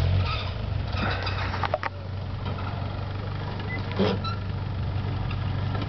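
VW T3 Syncro van's engine running steadily at low revs as the van creeps down a steep sandy slope, with a sharp knock about four seconds in.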